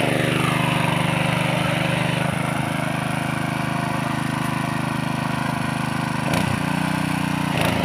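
Power weeder's Honda GX200 single-cylinder four-stroke petrol engine running steadily while its rotary tines till dry soil, its note dropping just at the start and then holding even.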